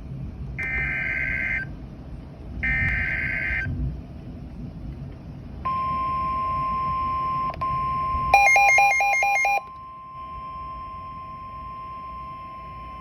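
Emergency Alert System SAME header: two harsh digital data bursts about a second long each, with a short gap between them. After a pause comes a single steady attention tone near 1 kHz, and a rapid string of about six beeps briefly sounds over it about two-thirds of the way through.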